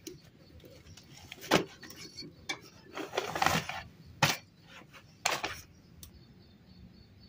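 A few sharp clinks and knocks of kitchen utensils, with a paper rustle about three seconds in, as a fresh paratha is laid in a bread basket, covered with paper and closed with a woven lid.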